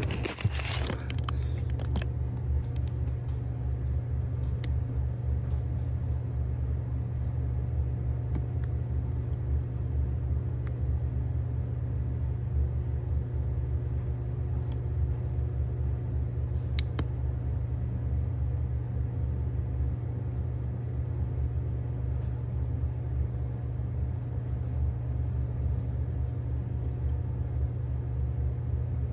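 Microwave oven running mid-cycle, a steady low hum, with a faint tick about halfway through.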